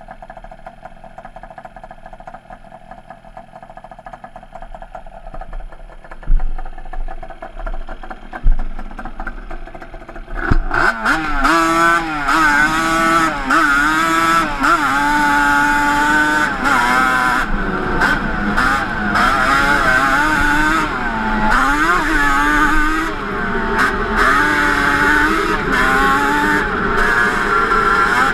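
Yamaha Banshee 350 twin two-stroke engine with Toomey T5 expansion-chamber pipes. It runs steadily at first, with two sharp thumps partway through. About ten seconds in it gets much louder, and the revs then rise and fall repeatedly as the ATV is ridden.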